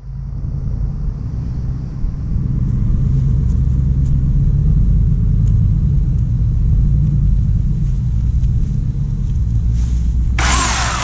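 A steady low rumble. About ten and a half seconds in, the Bauer 16-inch 14.5-amp electric chainsaw is triggered and whines briefly as its motor spins up.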